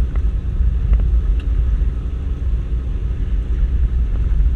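Inside the cabin of a Toyota Land Cruiser 120 rally car driving on a dirt track: a steady, loud low rumble of engine and tyres, with a few sharp knocks in the first second and a half.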